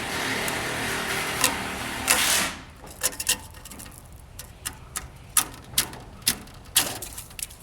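Rubber screen spline being pried and pulled out of a screen-frame track. A steady rushing noise for about the first two and a half seconds ends in a short louder burst, then come a dozen or so irregular sharp clicks and snaps, some in quick pairs.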